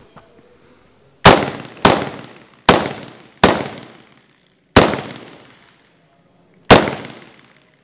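Six rifle shots fired from a shoulder-held semi-automatic rifle, each a sharp crack with a short ringing tail. Four come in quick succession about a second in, then two more follow at longer gaps as the shooter moves between targets.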